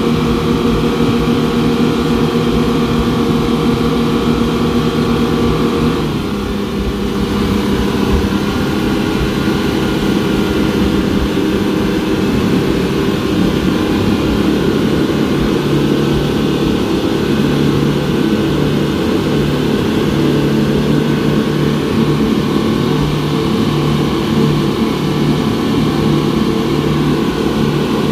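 Twin 250 hp outboard engines of a wooden speedboat running steadily at speed. The engine note dips and shifts briefly about six seconds in, then holds steady again.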